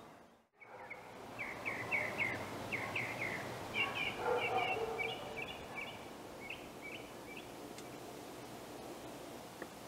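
Quiet outdoor ambience with a bird chirping in quick runs of short notes, which stop about seven seconds in.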